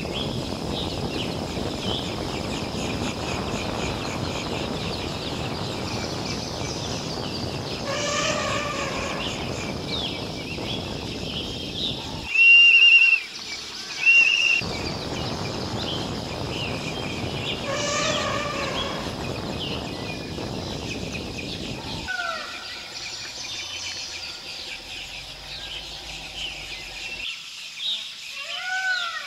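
Forest ambience full of bird calls and chirps over a steady rushing noise. There are two drawn-out ringing calls, and about midway two loud, short, high whistles about a second apart.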